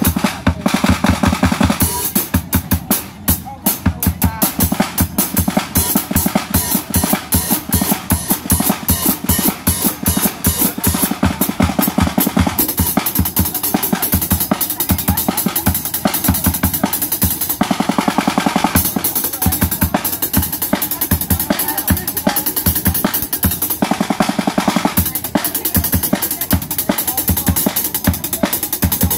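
Acoustic drum kit solo played with sticks: fast strings of strokes on the drums over the bass drum, with cymbals washing in over some stretches.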